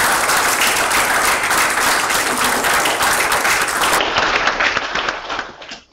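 An audience applauding steadily, then fading out and stopping near the end.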